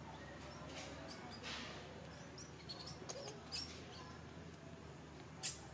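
Infant macaque giving short, high squeaks at irregular intervals, about seven in all, over a steady low background hum.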